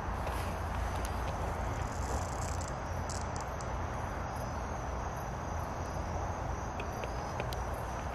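Steady chorus of crickets and other night insects over a low rumble, with a short creaking sound partway through that has no visible cause.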